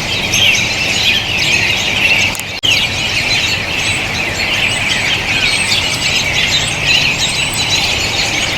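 A flock of American robins calling together, a dense chorus of many overlapping short, high calls. The sound drops out for an instant about two and a half seconds in, then the chorus carries on.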